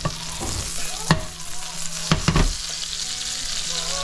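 Butter and chopped garlic sizzling in a frying pan, a steady hiss, with a few sharp knocks about one second in and again around two seconds in.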